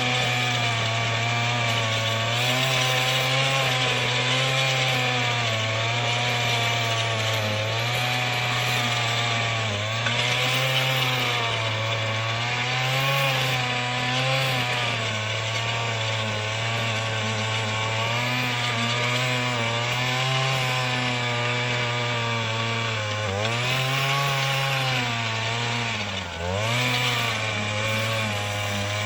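Earthquake MC33 mini tiller's 33cc two-stroke engine running under load, its speed wavering up and down as it works the soil. It dips twice near the end and picks back up.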